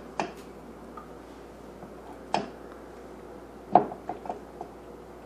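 Light clinks and knocks of a utensil against a mixing bowl as dressing is scooped out. Three separate knocks come a couple of seconds apart, the loudest about four seconds in, followed by a few lighter ticks.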